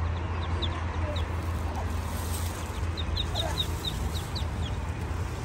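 Muscovy ducklings peeping in short, high, falling chirps, scattered at first, then a quick run of them about three seconds in, over a steady low hum.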